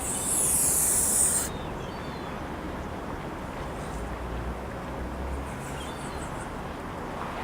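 Male Toulouse goose (gander) hissing once for about a second and a half: a defensive threat warning an intruder away from his mate.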